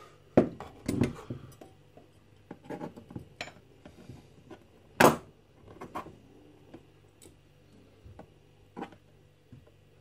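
Copper pipe and copper wire being handled on a workbench: scattered metallic clinks and knocks, the loudest about five seconds in.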